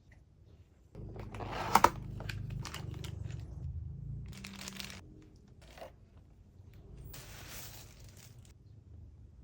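Keyboard packaging being handled and unwrapped: crinkling, crunching and tearing of paper and plastic wrap, with a sharp click about two seconds in and a longer rustle near the end.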